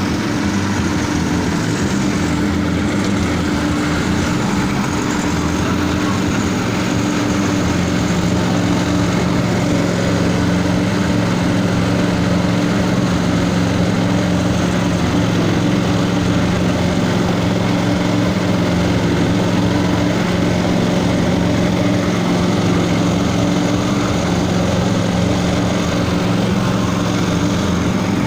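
A machine's engine or motor running steadily at a constant speed, with an even hum that does not change.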